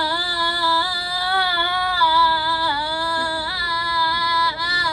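A young girl holding one long sung "aah" into a microphone for as long as a single breath lasts, the pitch steady with small wobbles.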